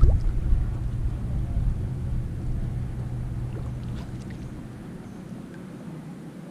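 Kayak paddling: paddle strokes and water sounds under a low rumble that dies away about five seconds in, with a few faint knocks.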